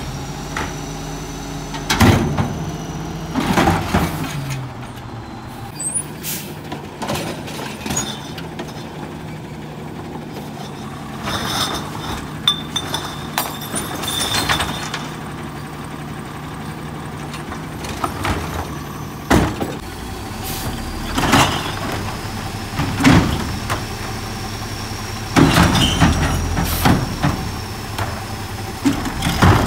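Natural-gas automated side-loader garbage trucks at work: the engine and hydraulics run steadily while the side arm lifts and tips carts. Carts bang against the hopper and arm many times, with sharp bangs and bursts of noise throughout.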